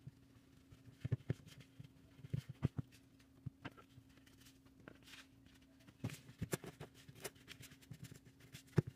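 Stirring a crumbly streusel of butter, sugar, flour and cinnamon in a mixing bowl: faint, irregular scrapes and light knocks of the utensil against the bowl, over a faint steady hum.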